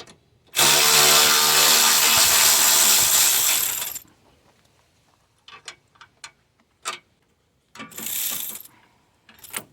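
Cordless power tool running steadily for about three and a half seconds, spinning off a 10mm nut on an A/C pipe. A few small metal clicks follow, then a second, shorter and quieter run near the end.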